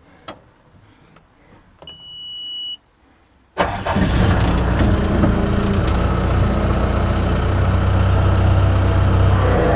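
A high electronic warning beep sounds for about a second. About a second later an engine comes on suddenly and runs steadily at idle.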